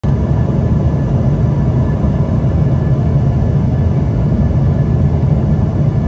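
Steady cabin noise inside an Embraer ERJ-145XR on final approach with flaps down: a deep, even rumble from its rear-mounted Rolls-Royce AE3007 turbofans and the airflow, with faint steady high tones above it.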